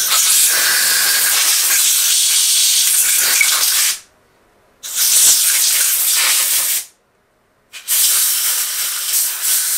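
Compressed-air blow gun hissing as it blows water out of the passages of freshly washed carburettor parts. Three long blasts: the first about four seconds, then a short break, a two-second blast, another break, and a third blast starting about eight seconds in.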